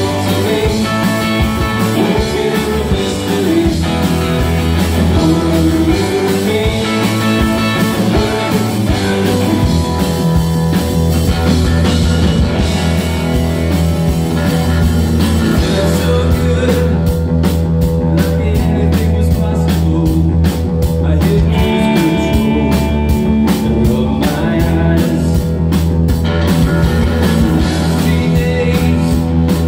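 Live rock band playing electric guitar, bass guitar and drum kit through amplifiers. About halfway through, a steady cymbal beat comes forward.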